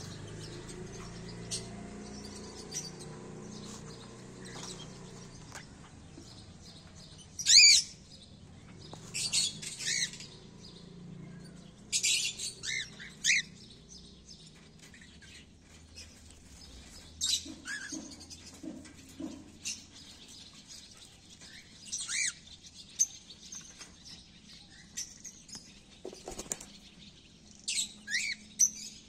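Cockatiels calling with short whistled chirps that glide in pitch, coming in scattered bursts every few seconds, the loudest about seven seconds in, with faint clicks between calls.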